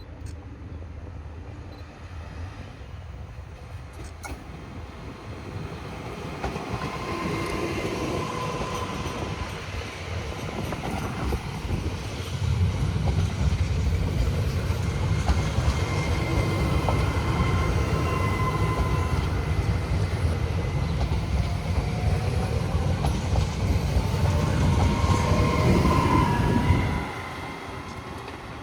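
A train passing at a station: its rumble builds for several seconds, runs loud for about fifteen seconds with wavering high wheel squeal over the clatter of the wheels, then drops away suddenly near the end as the train clears.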